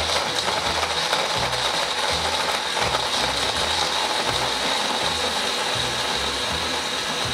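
Countertop blender running at a steady speed with a high whine, puréeing strawberries into a smoothie.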